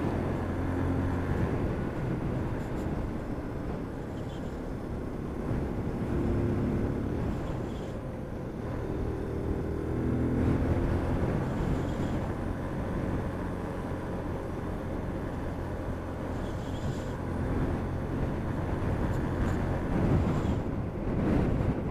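Motorcycle engine running on the move, rising in pitch several times as it accelerates, under a steady rush of wind on the helmet microphone.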